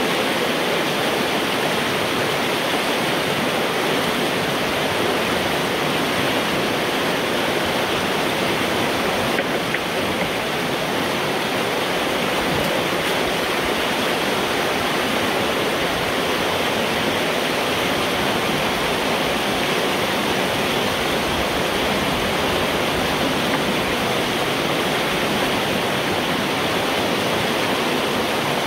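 Water rushing and cascading through a culvert pipe where a beaver dam is being broken open: a steady, unbroken rush as the flooded pond drains.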